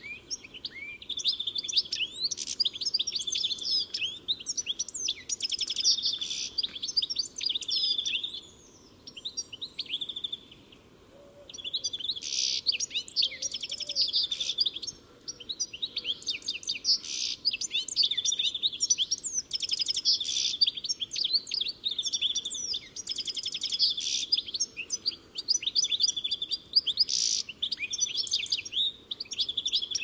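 European goldfinch (Carduelis carduelis) singing: a long, fast, tinkling twitter of rapid chirps and trills, breaking off for about three seconds some nine seconds in, then resuming.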